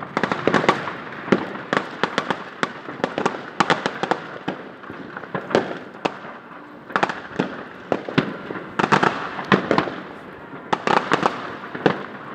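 New Year's Eve fireworks and firecrackers going off: an irregular, unbroken string of sharp bangs and crackles that thickens into dense volleys several times.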